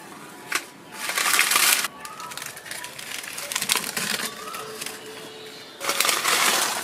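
Dry leaves being crumpled and pushed into a clay stove's fire opening, rustling in loud bursts about a second in and again near the end, with crackling as they catch alight. A short sharp scratch about half a second in, as a match is struck.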